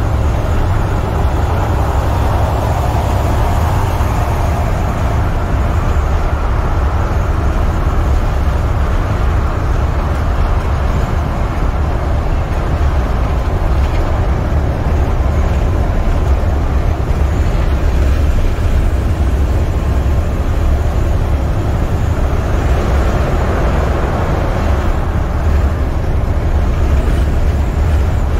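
Semi truck's MaxxForce 13 diesel engine pulling steadily at highway speed, heard inside the cab as a continuous low drone mixed with tyre and road noise.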